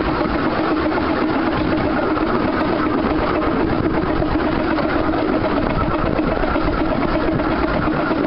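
Steady running noise of a 15-inch gauge miniature train, heard from inside one of its carriages: the coach's wheels rumbling along the rails as the train travels at speed.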